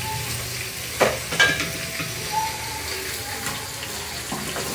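Diced potatoes sizzling in oil in an aluminium pot on a gas burner, stirred with a wooden spoon. Two sharp knocks a little after a second in.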